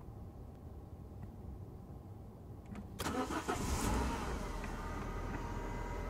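Renault Laguna II 1.8 16V four-cylinder petrol engine cold-started: quiet with a few faint clicks, then about three seconds in it cranks and catches in a loud burst and settles into a steady fast cold idle with a thin whine over it. The owner suspects the noise comes from a failing VVT (camshaft variable timing) pulley.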